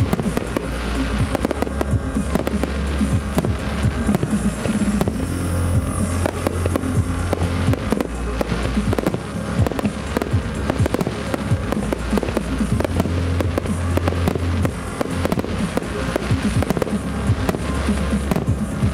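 Aerial fireworks of a starmine barrage bursting in a dense, continuous run of bangs, with loud music from a nearby loudspeaker underneath.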